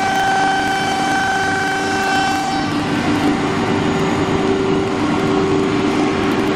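Wood CNC router running: a steady machine whine with a rough noisy layer beneath, its pitch dropping to a lower tone about two and a half seconds in.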